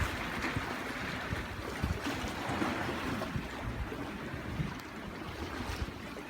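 Blizzard wind gusting on the microphone over a steady wash of high, choppy bay water.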